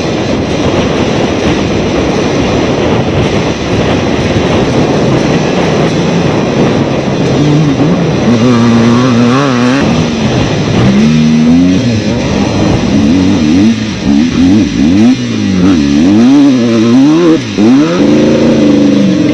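Off-road race vehicle engine at speed, over a loud rushing noise; from about halfway its revs climb and drop again and again in quick swings.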